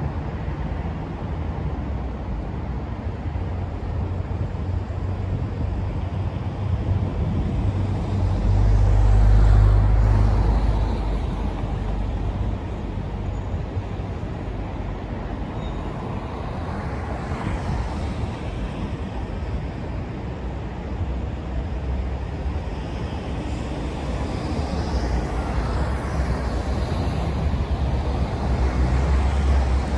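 Steady road traffic noise from busy roads and an elevated highway, with a deep low rumble that swells loudest about nine to ten seconds in and builds again near the end.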